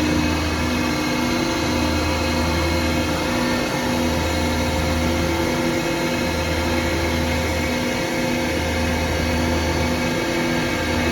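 Harrison Alpha 400T CNC lathe running: a steady machine hum with several steady tones, and a low drone that swells and fades about every two and a half seconds.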